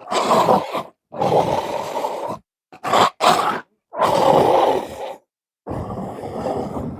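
Animal growl and bark sound effect: a run of rough, throaty growls, each about a second long with short gaps between, and two short sharp barks about three seconds in.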